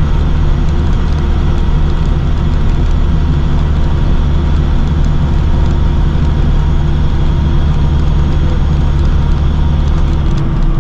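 Steady drone of a box truck's engine and tyres heard from inside the cab while cruising on a highway, with a deep engine hum under road noise. Shortly before the end the deepest part of the hum lessens.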